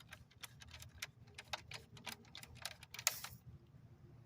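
Faint, irregular light clicks and taps of tools and small metal parts being handled at the fuel rail of a car engine, with a short hiss a little after three seconds in.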